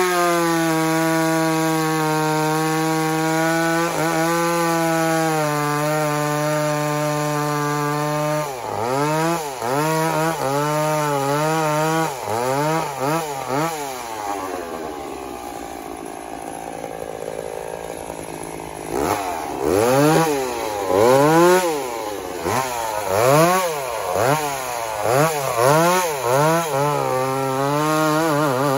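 Chainsaw cutting through a conifer log, held at full throttle with a steady high engine note for the first several seconds. It then revs up and down repeatedly, drops to a lower, quieter run around the middle, and finishes with quick rises and falls about once a second as the cut is worked.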